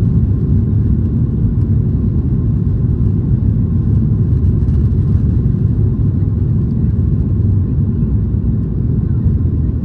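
Cabin noise of a Boeing 737-800 taxiing, heard over the wing: a steady low rumble from its CFM56-7B turbofan engines and the rolling gear.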